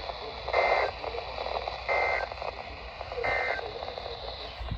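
Three short squawks of the Emergency Alert System's SAME data signal, each about a third of a second long and about a second and a half apart, over steady radio hiss. This is the end-of-message code that closes an alert broadcast, heard through a weather radio's speaker.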